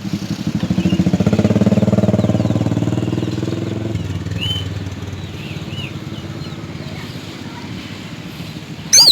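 A motor vehicle's engine passing by, a low pulsing hum that swells about a second in and then slowly fades, with a few faint bird chirps in the background and a short loud bird call at the very end.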